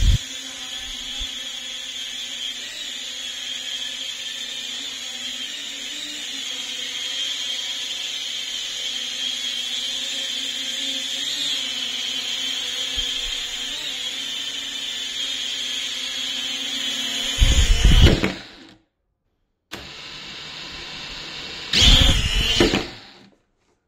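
Small quadcopter drone's propellers whirring in a steady high whine that wavers slightly as it flies. Twice near the end the sound swells into a loud rush as the drone comes right up to the microphone, and each time it cuts off abruptly.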